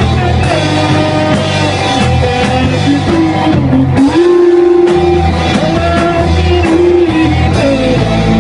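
Rock song with electric guitar and drums under a sung melody, including one long note held with vibrato about halfway through.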